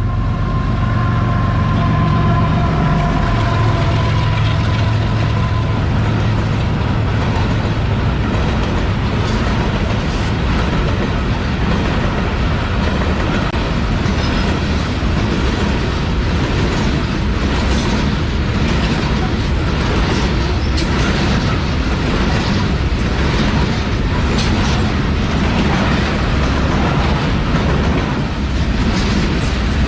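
Diesel locomotive 49030 passing at the head of a coal train, its engine droning for the first few seconds and then giving way to the wagons. The loaded coal wagons roll past steadily, with a clickety-clack of wheels over the rail joints.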